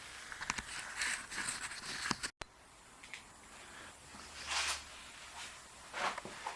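Generator parts being handled on a workbench: scattered light clicks and short rustles, with a louder rustle about four and a half seconds in.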